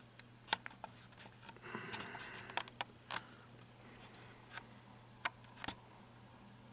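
Crinkling and crackling of a foil blind bag holding a mystery figure as it is handled and opened by hand: scattered sharp clicks and crackles, with a short rustle about two seconds in.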